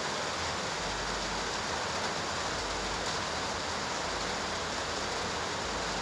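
A steady, even hiss like rushing water or rain, with no separate knocks, clicks or tones.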